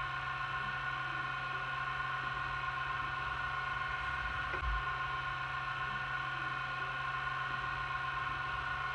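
VCR running with a steady whirring hum, its tape mechanism turning, and a faint tick about four and a half seconds in.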